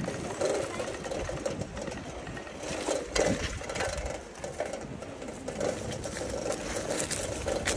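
Bicycle being ridden, with a fast, even mechanical ticking and rattling.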